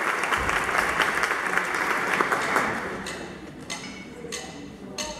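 Audience applause, dense at first, dying away about halfway through, after which only a few single clicks remain.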